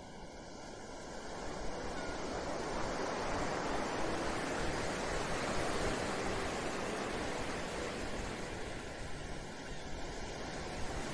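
Ocean surf sound bed: a steady wash of waves that swells about two seconds in and eases slightly toward the end.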